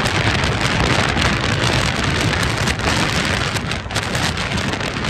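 Loud, steady rushing of wind on the microphone with road rumble, from a vehicle moving along a road.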